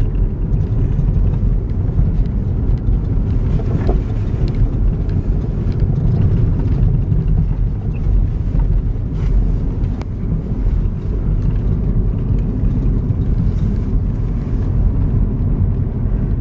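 Pickup truck driving on a snow-covered road: a steady low rumble of engine and tyre noise, with a few light clicks.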